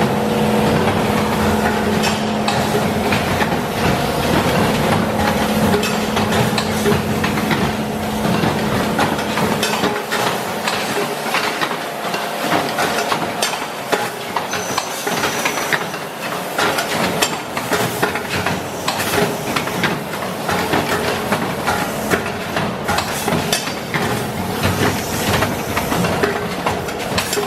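Twin-pouch doypack packing machine running: continuous mechanical clatter with rapid, irregular clicks and knocks over a hissing noise. A steady hum underneath stops about ten seconds in.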